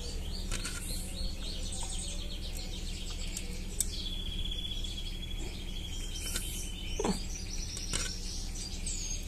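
Small songbirds chirping and twittering, with one long, evenly pulsed trill lasting about three seconds in the middle. A few light taps come through.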